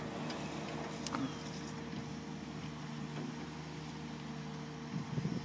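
Komatsu PC200 excavator's diesel engine and hydraulics running with a steady drone while its drum screening bucket turns and sifts soil. There is a sharp click about a second in and a few brief low rumbles near the end.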